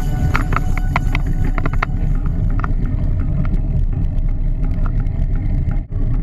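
Steady low rumble of wind buffeting and rolling vibration picked up by a camera mounted on a moving bicycle, with a few sharp clicks and rattles in the first two seconds.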